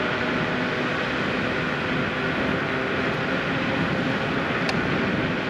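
Steady rushing noise of riding a dual-motor electric scooter on a paved trail: wind on the microphone and tyre noise, with a faint steady hum underneath. A small click near the end.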